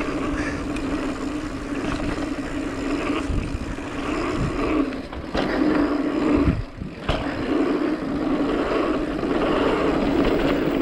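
Mountain bike rolling fast down a dirt trail: a steady buzz with rushing noise, and a few knocks from bumps around the middle.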